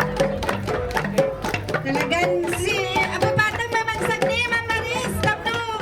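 Flat gongs struck in a fast, steady rhythm, their ringing tone sustained under the beats, with voices rising over the playing midway.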